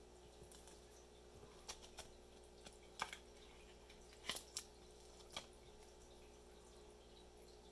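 Faint, sparse clicks and ticks of a trading card being handled and slid out of a rigid plastic toploader, about half a dozen small sounds, the clearest about three and four and a half seconds in, over a quiet steady hum.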